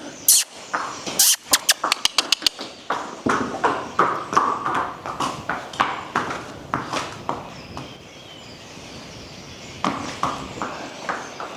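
A horse's hoofbeats, a quick run of sharp clip-clop strikes as it trots. The hoofbeats thin out for a couple of seconds after the middle, then pick up again.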